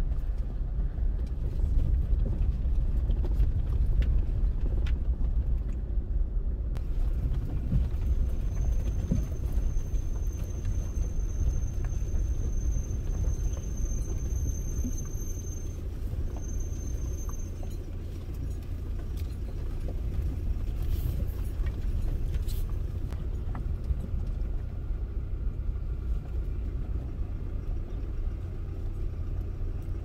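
Steady low rumble of a car's engine and tyres, heard from inside the cabin while driving. A faint, thin, high steady whistle comes in for several seconds in the middle.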